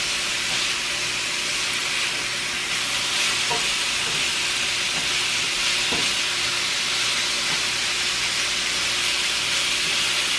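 Cubed steak sizzling steadily in a little oil in a nonstick skillet while a spatula stirs it, with a couple of light knocks of the spatula against the pan.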